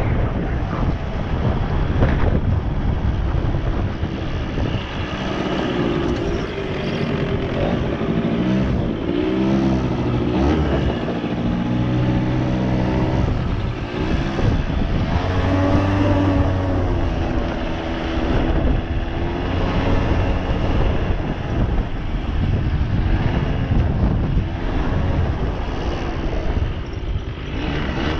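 Suzuki LT80 ATV's small two-stroke single-cylinder engine running, its pitch rising and falling repeatedly as the throttle is opened and eased off.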